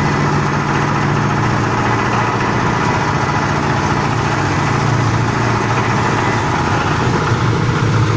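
Pan (disc) granulator for compost fertiliser running, its drive giving a steady engine-like low drone with a fast, even rhythm.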